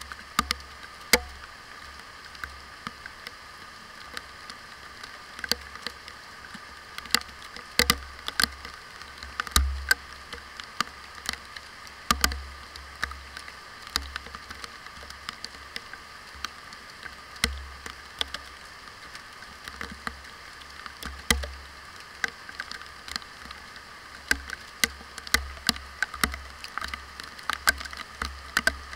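Raindrops striking the waterproof case of an SC-3 camera, heard from inside the case as irregular sharp ticks and taps over a steady muffled hiss of rain.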